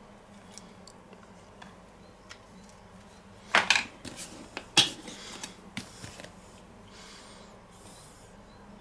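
Condiment containers handled on a wooden cutting board: a mustard tube set down and a ketchup squeeze bottle picked up, with two sharp knocks about three and a half and five seconds in and a few lighter knocks after. Near the end a soft airy squelch as ketchup is squeezed out of the bottle.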